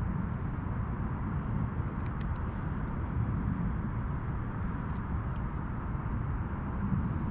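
Steady low outdoor rumble with a few faint ticks.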